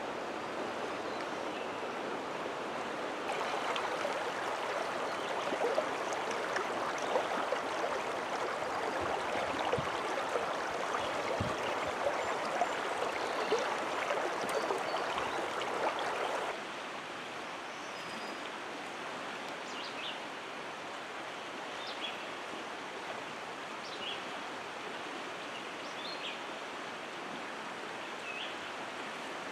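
Creek water running over a shallow, rocky bed: a steady rush that drops a step quieter about halfway through.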